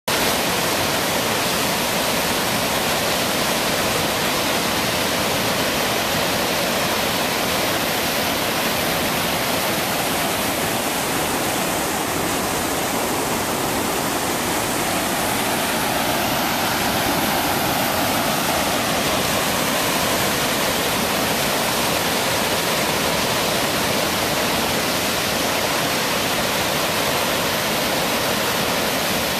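Heavy flow of muddy water pouring over a concrete dam spillway and churning in the pool below: a steady, loud rush of water that keeps an even level throughout.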